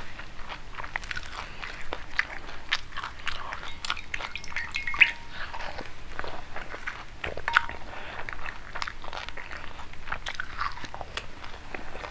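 Panipuri (crisp fried puri shells) being bitten and chewed close to the microphone: crackly crunching and chewing throughout, with two sharper crunches about five and seven and a half seconds in.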